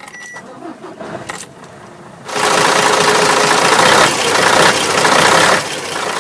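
Truck diesel engine starting about two seconds in, running loudly for a few seconds, then settling to a lower steady idle.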